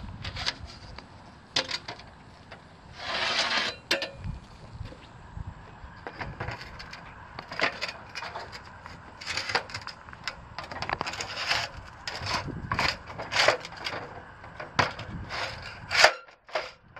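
Solar blanket reel tube segments being slid into each other and handled: a run of short knocks and clicks with scraping, including one longer scrape about three seconds in.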